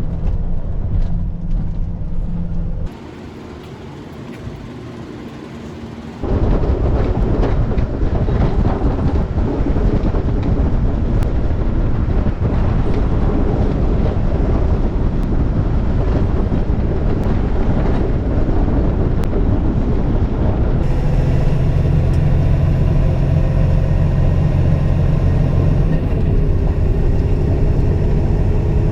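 Heavy snowplow truck on the road: its diesel engine drones under dense rumbling road noise. The sound cuts between clips, turning quieter for a few seconds near the start, then a long stretch of heavy rumbling, then a steady engine drone again near the end.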